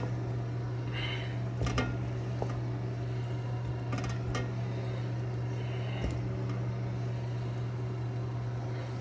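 Metal tongs clinking a few times against a stainless steel mixing bowl while picking up sauced chicken wings, over a steady low hum.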